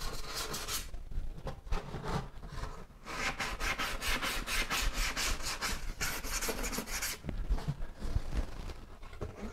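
A 180-grit sanding pad rubbed by hand over the resin-coated edges of a sink mould insert: quick, scratchy back-and-forth strokes, most intense from about three to seven seconds in.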